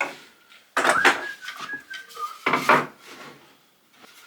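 Wooden beehive super parts being handled on the bench: two short scrapes or knocks of wood on wood, about a second in and again just before three seconds.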